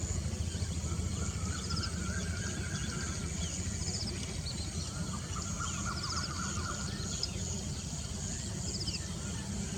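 Outdoor ambience with a steady low rumble and scattered short, high bird chirps and trills. Two longer buzzy notes, each lasting about a second and a half, come about a second and a half in and again around five seconds in.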